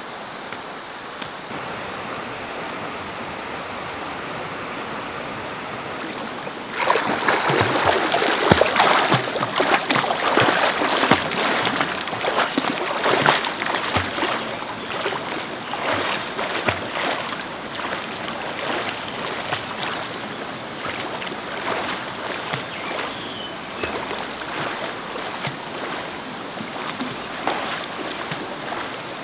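Shallow rocky stream running steadily. About seven seconds in, loud splashing and sloshing in the water starts suddenly, then slowly dies down to softer lapping and rippling.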